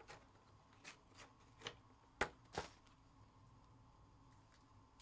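Trading cards and packs being handled: a handful of brief rustles and taps in the first three seconds, the loudest two a little past two seconds in.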